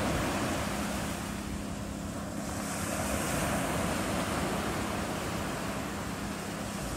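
Sea surf washing steadily on a beach, with wind on the microphone and a faint steady low hum underneath.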